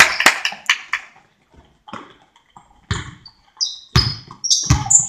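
A few sharp hand claps fade out at the start. About three seconds in, a basketball is dribbled on the gym floor, with dull bounces about a second apart and short high sneaker squeaks between them.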